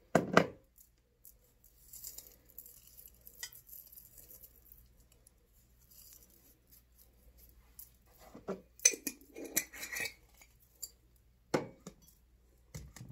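Glass jars and containers being handled on a table, knocking and clinking: a loud knock right at the start, a cluster of clinks and knocks about eight to ten seconds in, and two more single knocks near the end, with faint rustling between.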